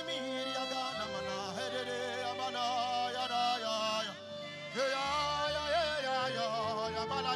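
Worship singing: a voice holding long, wavering notes in drawn-out phrases over steady held tones, with a short break about four seconds in.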